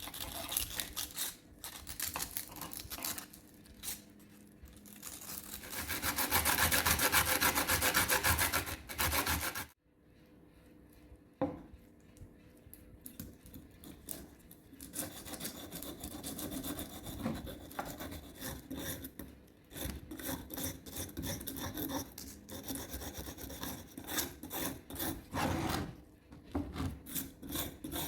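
Rusty steel scissor blade being rubbed with an abrasive: repeated rasping strokes. A louder, faster run of strokes comes just before a sudden break about ten seconds in.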